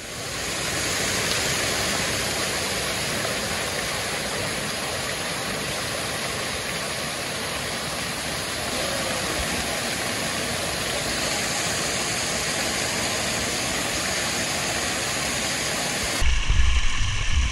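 Steady rush of flowing stream water, an even hiss heard close up. It cuts off near the end, giving way to a low rumble.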